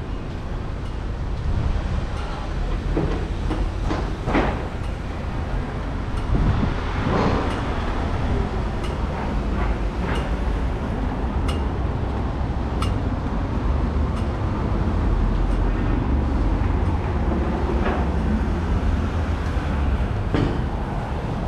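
A rail vehicle running: a steady low rumble with scattered clicks and knocks at irregular intervals.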